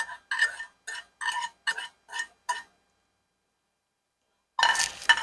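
A kitchen utensil scraping or tapping against a metal saucepan in short, even strokes, about two a second, stopping about two and a half seconds in. Near the end comes a louder clatter of pans.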